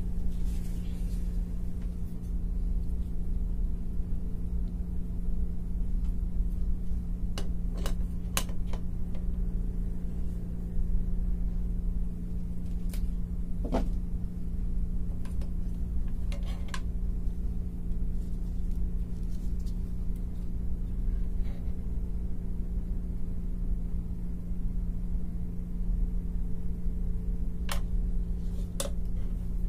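A steady low mechanical hum, with a few sharp clicks and taps at intervals from small parts and tools being handled on a workbench.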